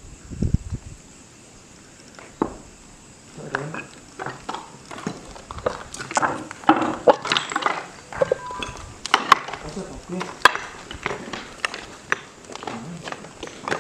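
Footsteps with sharp clicks and knocks, busiest from about six seconds in, alongside low speech.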